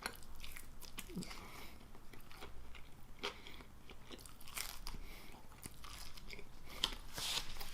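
A person chewing and crunching food close to the microphone, with scattered short crisp crunches.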